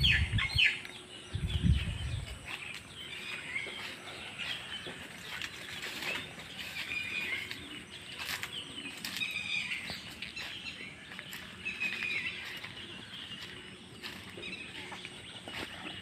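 Many small birds chirping and calling over faint outdoor background noise, with a few heavy low thumps in the first two seconds.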